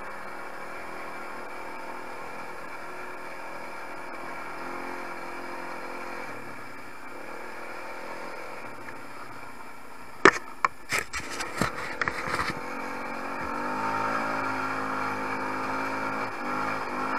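250 cc quad ATV engine running while the quad is ridden along a dirt track. About ten seconds in, a quick run of sharp knocks, the loudest sounds here. The engine then gets louder as the throttle opens, easing off near the end.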